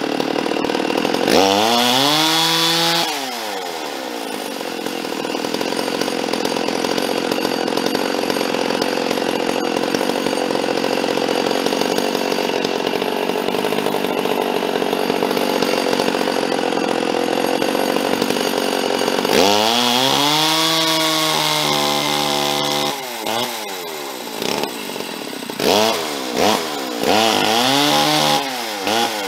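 Ported Stihl MS460 Magnum two-stroke chainsaw, its exhaust a bark box over a gutted muffler, running on a chainsaw dyno. It revs up to full throttle and back down about two seconds in, runs steadily through the middle, then revs up again and blips the throttle several times near the end. The saw is down on power, which the owner puts down to the carburetor.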